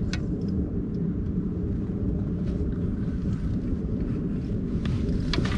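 Steady low rumble of wind buffeting the microphone, with a few short faint clicks from handling the rod and reel, one right at the start and two about five seconds in.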